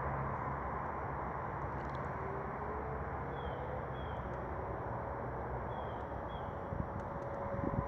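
Steady outdoor street and traffic noise with a low engine hum that comes and goes. A faint tone rises slowly in pitch through the middle, and faint short high chirps come in pairs now and then.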